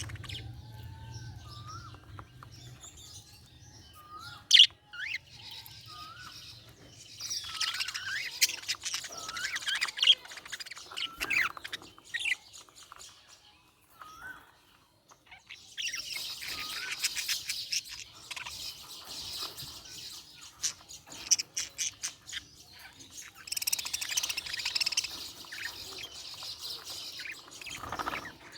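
Budgerigars chirping and warbling: a few short rising whistles, then three long bouts of rapid, busy chatter with brief pauses between them.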